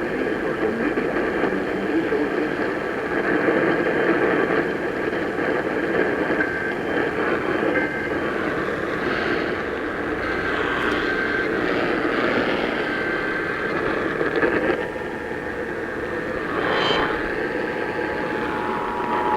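Hiss and static of a weather-radio receiver between two broadcast alerts, with a few faint short tones in the middle. Right at the end a steady two-tone EAS attention signal begins.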